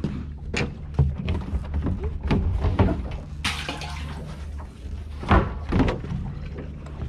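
Knocks and clunks of a plastic deck hatch lid on a small fishing boat being handled and lifted open, with a short rushing noise about three and a half seconds in. A steady low hum runs underneath.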